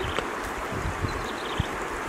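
Steady rush of a stream with a small wood campfire crackling, giving a few soft pops.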